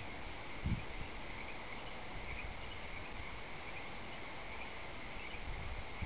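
Crickets chirping in a steady, high chorus, with one soft low thump a little under a second in.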